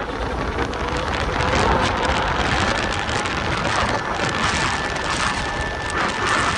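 Electric scooter being ridden: a steady rushing wind and road noise, with a faint, steady high whine that comes in about two and a half seconds in.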